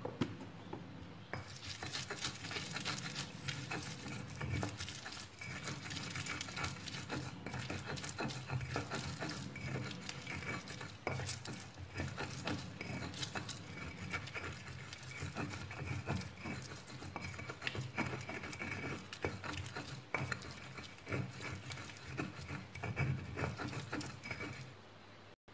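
Pestle grinding garlic, shallots and kencur with salt against a stone mortar (cobek): continuous scraping and crushing with many small clicks of the pestle on the stone. It starts about a second in and stops just before the end.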